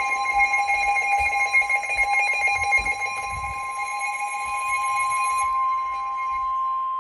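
Emergency Alert System attention signal: a steady, loud, high-pitched alert tone held throughout, layered with other steady tones that drop out about five and a half and six and a half seconds in.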